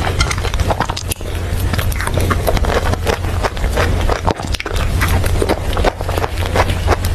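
Close-miked eating sounds of a cream-topped paper cup cake being eaten with a spoon: irregular wet mouth clicks and chewing, with the spoon scraping in the paper cup, over a steady low hum.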